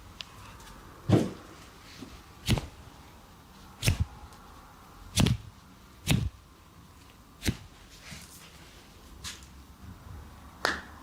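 Hands slapping on skin in a massage, seven sharp smacks roughly a second and a half apart, with a longer pause before the last.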